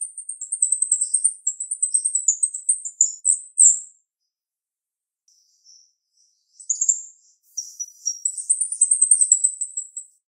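Female jalak rio-rio singing sharp, high-pitched chattering phrases of rapid notes, in two long runs separated by a short pause of a few scattered notes around the middle.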